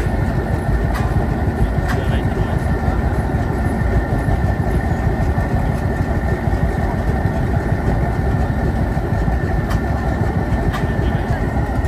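Landini hot-bulb tractor with iron wheels running, a single-cylinder two-stroke giving a dense, steady low rumble with a metallic clatter.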